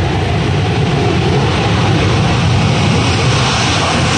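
Lockheed Martin F-35A Lightning II's single F135 turbofan at takeoff power: a loud, steady jet roar that grows slightly louder as the fighter accelerates down the runway toward liftoff.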